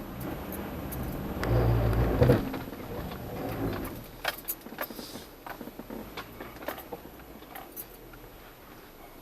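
Jeep Cherokee Trailhawk crawling over a rough off-road trail: a low rumble swells about a second and a half in, then scattered clicks and rattles as it bumps along.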